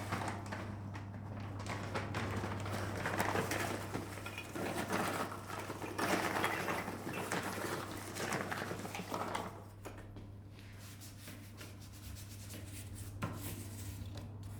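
Light clattering and rustling of objects being handled in a small room, over a steady low hum; the handling dies down about ten seconds in.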